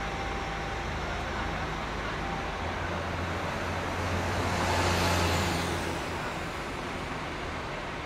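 Heavy vehicle engine running steadily, with a low hum coming in and the noise swelling louder about halfway through, then easing back.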